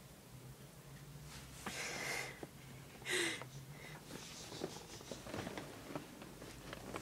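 A dog snorting twice through its nose, two short noisy huffs about two and three seconds in, followed by light rustling of bedding as it is handled.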